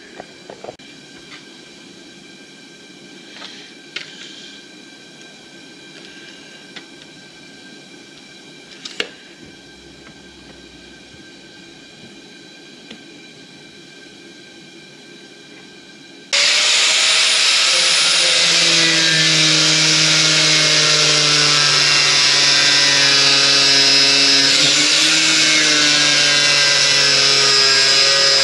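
A few light clicks and knocks, then about two-thirds of the way in an electric power tool switches on suddenly and runs loud and steady with a motor whine that shifts a little in pitch.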